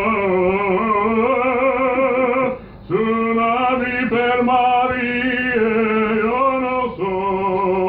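A man singing long, drawn-out notes with a wavering vibrato, pausing briefly for breath twice.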